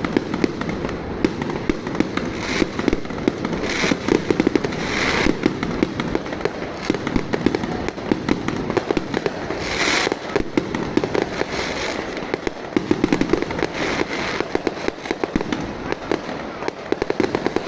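Fireworks and firecrackers going off in a dense, continuous run of rapid bangs and crackles, with a few louder bursts scattered through it.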